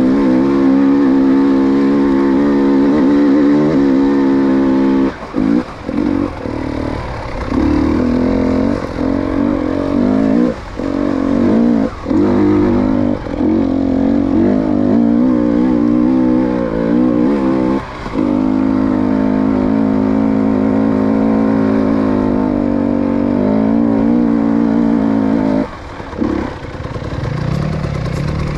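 Fuel-injected two-stroke enduro motorcycle (TBI) being ridden at steady throttle during its run-in. The engine note dips briefly several times as the throttle is rolled off and picked up again.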